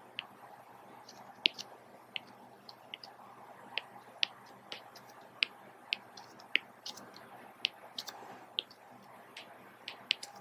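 Stylus tapping on a drawing tablet as lines are drawn: light, irregular ticks, about two a second.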